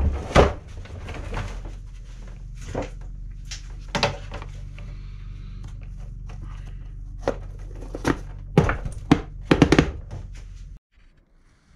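Sharp knocks and clicks of a robot lawn mower's wheel and plastic hub cap being handled and pressed into place on the mower body, with a quick cluster of them near the end. Under them runs a steady low hum that cuts off suddenly just before the end.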